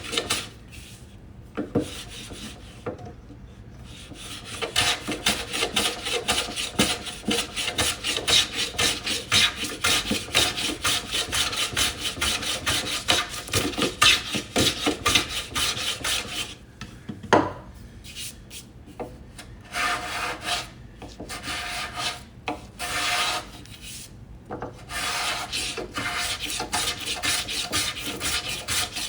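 A hand tool cutting into wood with quick, repeated back-and-forth strokes, stopping briefly a few times between runs of strokes.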